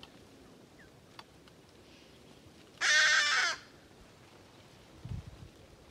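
A single harsh, rasping animal call about three seconds in, lasting under a second and falling slightly in pitch.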